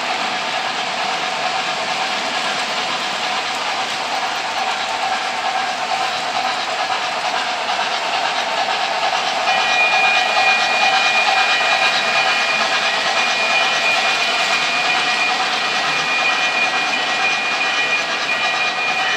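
O gauge model trains rolling on three-rail track: a steady rattle and rumble of wheels and cars. A steady high whine joins about halfway through.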